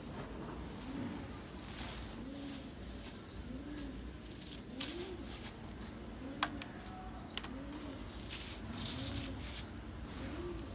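A dove cooing over and over, one low arched coo about every second, with a few brief crackles and clicks scattered through, the sharpest about six seconds in.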